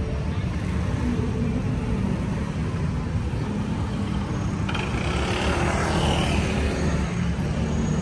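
Busy city-street traffic: a steady low rumble of passing motor vehicles, with a sudden hiss breaking in a little over halfway through and fading over about two seconds.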